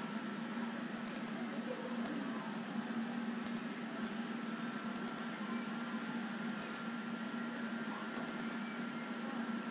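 Faint computer mouse clicks, some single and some in quick runs of two or three, scattered over a steady hiss and low hum from the recording.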